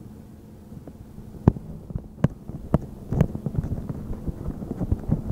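Steady low hum from the rollover car wash machinery. About a second and a half in, a few sharp knocks start and thicken into a quick irregular clatter of knocks as the camera is moved away.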